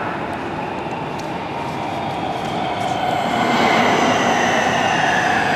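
A Nuremberg U-Bahn DT3 train approaching a platform in the tunnel: a rail rumble that grows louder from about three and a half seconds in, as a steady electric whine of several tones comes up over it.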